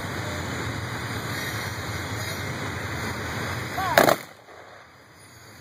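Steady rushing rumble of a passing train, then about four seconds in one sharp, loud crack: a single volley from the honor guard's rifle salute. The background noise drops away right after the shot.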